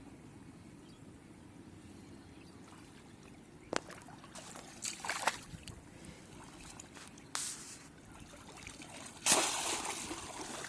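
Shallow water splashing and sloshing in a few separate bursts, the loudest and longest starting about nine seconds in, after a sharp knock near the middle.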